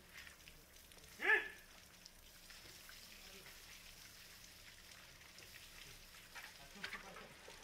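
Garden hose spraying water over an elephant's wet hide and into the puddle around it: a steady, rain-like patter. About a second in, one short high-pitched call rises and falls over it.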